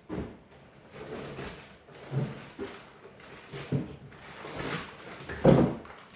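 Packaging being handled: four dull thumps, the loudest near the end, with rustling in between, as packs of meat and boxes are moved about.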